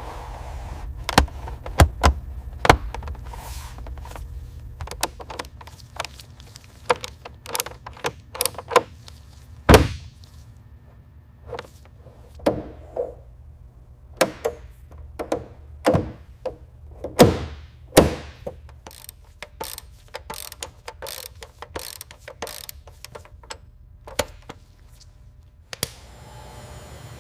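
Irregular clicks, knocks and taps of parts and hand tools being handled, some with short scraping slides, over a steady low hum.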